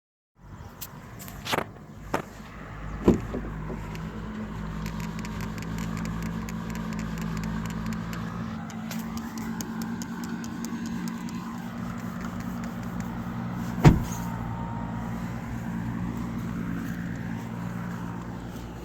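Skoda Octavia creaking and squeaking over the steady hum of its running engine, with a faint wavering squeal and several sharp knocks, the loudest about three seconds in and near fourteen seconds.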